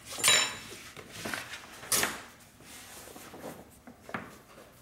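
Handling noises as the freshly mounted silk scroll and its paper are moved and looked over: short rustling swishes and light knocks, the loudest about a third of a second in and again at two seconds, with smaller ones between and one more near the end.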